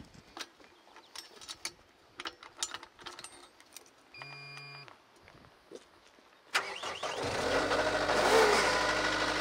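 Clicks of switches, a short electronic beep, then a Cat 242D skid steer's diesel engine cranking and starting about two-thirds of the way in, settling into a steady run.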